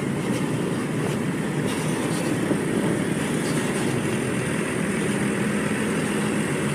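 Steady rumble of a large diesel bus engine running, with a low hum that comes in about five seconds in.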